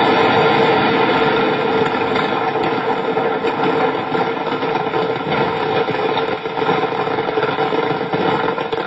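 Helicopter running steadily, a loud continuous engine and rotor drone that eases slightly in the second half.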